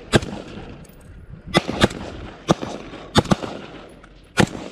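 Carbine fire: about seven single shots at uneven spacing, a few in quick pairs, each a sharp crack.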